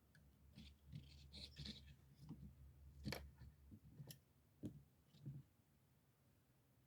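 Faint handling of a Victorinox Deluxe Tinker pocket knife: soft rustling, then a few separate sharp clicks as its tools are worked, about three, four and nearly five seconds in.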